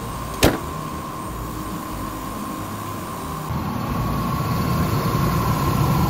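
Chevrolet Astro's 4.3-litre V6 running with the hood open, the audio sped up to double speed. A thin steady whine sits over it and a single sharp knock comes about half a second in. With the air conditioning on there is no clear rattle from the belt and tensioner, which had rattled on an earlier day.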